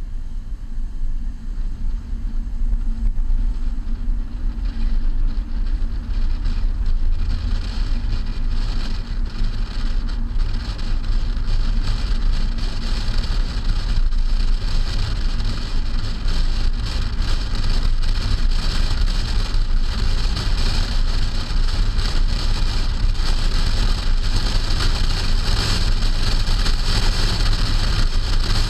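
Wind and road noise from a moving 2008 Hyundai Sonata, heard from a camera on its trunk: a steady deep rumble of wind buffeting the microphone, with tyre hiss. The hiss grows louder a few seconds in.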